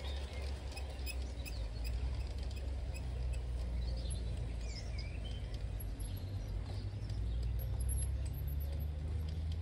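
Steady low rumble with small birds chirping now and then, in short rising and falling calls.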